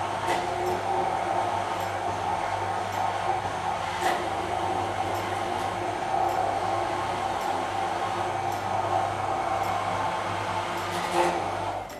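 Hand-held immersion blender running steadily in a tall plastic beaker, puréeing cooked pumpkin and orange juice into a smooth soup. It is a continuous motor hum with a few faint clicks and stops at the very end.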